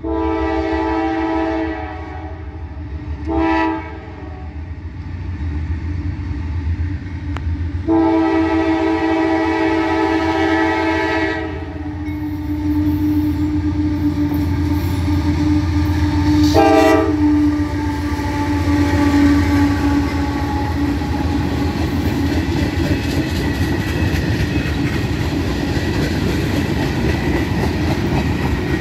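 Freight train led by CM44AC diesel locomotives sounding its multi-chime air horn for the crossing: a long blast, a short one, a longer one and a final short one. The locomotives then run past, followed by freight cars rolling by with a steady clickety-clack of wheels on the rail.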